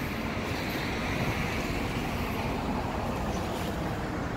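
Steady background road-traffic noise, an even rumble and hiss with no distinct events.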